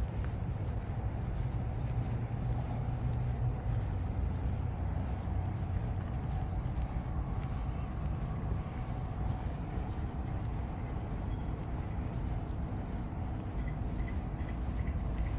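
Steady low rumble of road traffic, with a few faint high chirps near the end.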